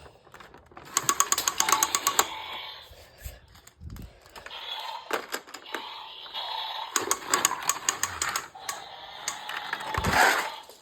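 Rapid plastic clicking from a Hot Wheels stunt track set, in two runs of about a second each, then a louder clatter near the end.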